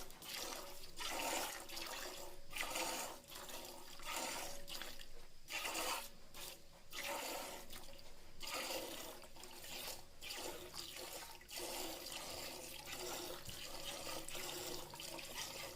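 Milking: jets of milk squirting into a pail in repeated hissing spurts, roughly one a second.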